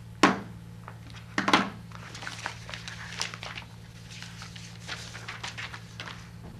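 Papers and a folder rustling and sliding on a table as they are handled, after two sharp knocks in the first second and a half, over a steady low electrical hum.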